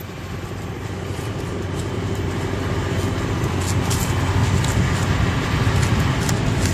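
A vehicle engine rumbling and growing steadily louder.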